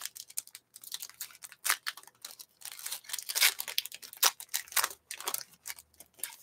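Trading card pack wrapper being torn open and peeled off by hand: a string of irregular crinkling, crackly rustles, busiest around the middle.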